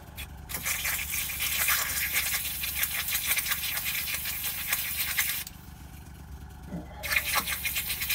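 Airbrush being cleaned: cleaner and air hissing through it, with a slight rattle, in one long burst of about five seconds. A second, shorter burst comes near the end.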